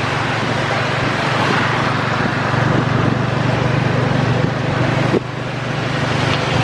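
A motor vehicle's engine running steadily under the dense hiss of heavy rain and water from a flooded road. The sound drops briefly about five seconds in.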